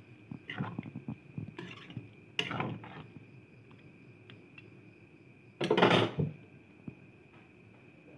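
A metal spoon scraping and knocking against a metal wok while stirring chunks of pork and potato in sauce. It comes in several short bursts, the loudest a little past the middle.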